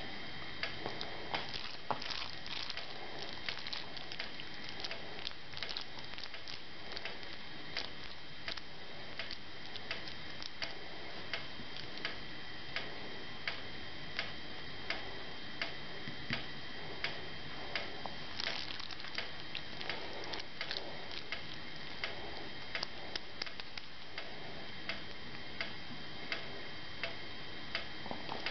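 Regular ticking, a little over one tick a second, like a clock, over a faint steady high whine. Now and then there is soft squishing from raw chicken mince being kneaded by hand.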